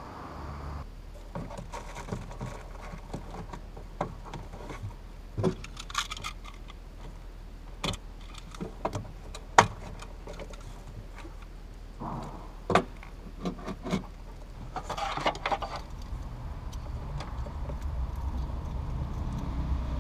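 Irregular clicks, knocks and rattles of hands handling plastic trim, a screwdriver and wiring in a car's boot, with a few sharper knocks, the loudest about halfway through. A low rumble rises near the end.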